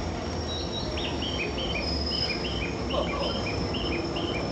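Short electronic two-tone chime alternating high and low, about two and a half pairs a second, starting about a second in, over the low rumble of an arriving 189-series train.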